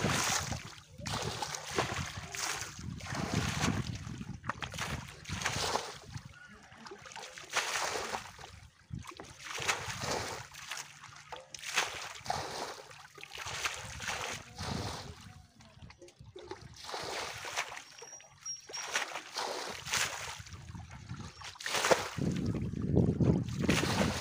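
Muddy water scooped with steel plates and a bucket and flung out of a shallow pool, in repeated splashes every second or two, with trickling and sloshing between throws.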